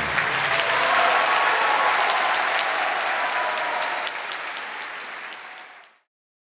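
Audience applauding at the end of a choir-and-orchestra piece. The applause fades out and is gone about six seconds in.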